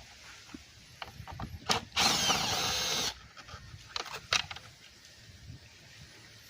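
Power drill running to back out a screw holding the side-mirror turn-signal lamp: a short blip, then a steady run of about a second. Two brief sharp sounds follow a second later.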